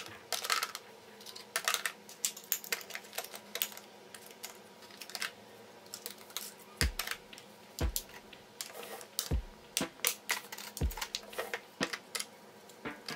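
Plastic makeup compacts and palettes clicking and clattering as they are handled and set into plastic drawer organizer trays, with a few dull knocks in the second half.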